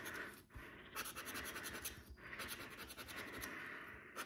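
A plastic scratcher tool scratching the coating off a scratchcard in quick back-and-forth strokes, with two brief pauses.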